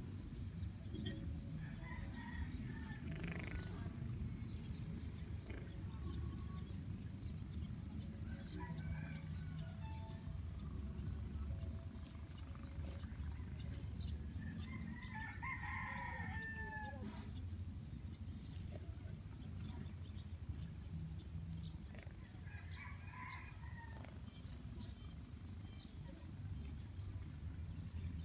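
Roosters crowing several times, the clearest and longest crow about halfway through, over a steady low rush of wind noise.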